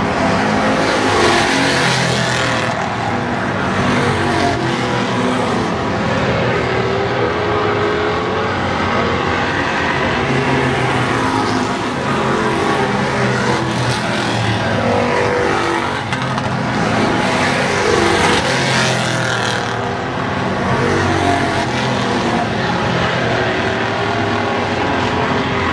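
A field of street stock race cars running at racing speed around an oval track, engines loud and continuous with many overlapping notes rising and falling as cars pass. The sound swells as the pack goes by about two seconds in and again about eighteen seconds in.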